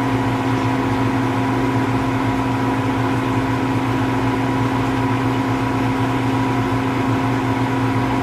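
Steady, unchanging hum of a car running, with a constant drone and no change in pitch.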